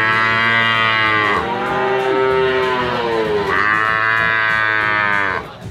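Water buffalo calling: a long, drawn-out, moo-like bellow lasting about five seconds. It shifts in pitch twice and stops abruptly near the end.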